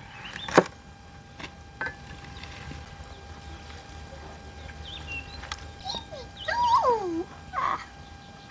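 A heavy cleaver chops once through a lime onto a wooden cutting board, a single sharp crack just after the start. Later, a few whining calls slide down in pitch.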